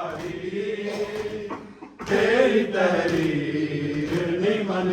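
Mourners chanting a Punjabi noha lament in unison, drawn out in long held notes. The chanting fades briefly about two seconds in, then a louder phrase begins.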